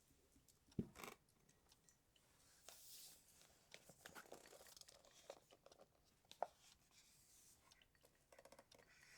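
Faint close-up handling sounds: a soft thump about a second in, then rustling, small clicks and crunchy noises.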